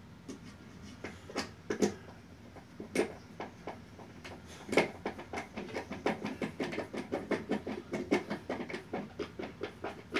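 Clicks and knocks from hands and a small tool working screws into a flat-pack desk panel: a few sharp knocks, then a fast, fairly even run of clicks about four a second from about five seconds in.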